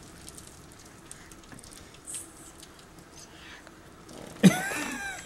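Baby blowing a raspberry against a man's bare forearm, a fart-like buzz. It comes after a few seconds of quiet, starts suddenly about four and a half seconds in and wavers in pitch for about half a second.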